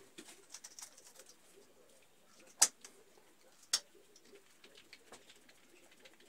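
Faint pigeon cooing runs throughout. Two sharp clicks, about a second apart near the middle, come from a small hand tool worked against the wall wiring.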